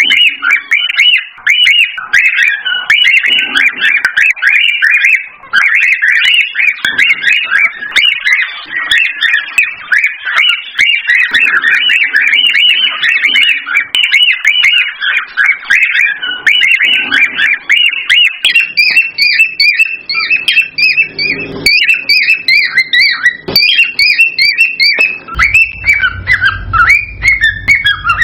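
Cockatiel song: rapid, unbroken whistling and chirping made of short notes that rise and fall. About two-thirds of the way through, a higher run of chirps joins in, and a low hum comes in near the end.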